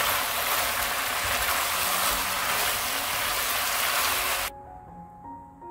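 Octopus, thin-sliced pork belly and vegetables sizzling loudly in a hot wok as they are stir-fried. The sizzle cuts off suddenly about four and a half seconds in, and soft piano music follows.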